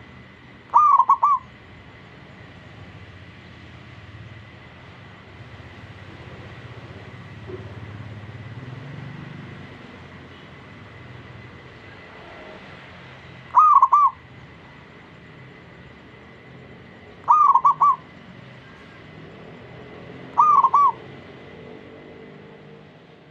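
Zebra dove (perkutut) cooing: four short phrases, each a quick run of about three notes, about a second in and then three more in the second half, spaced a few seconds apart. A faint steady hum sits underneath.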